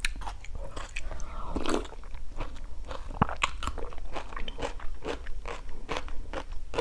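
Close-up wet chewing and mouth sounds of a person eating a spoonful of Vietnamese sour soup (canh chua) with tomato and bean sprouts, full of short sharp clicks.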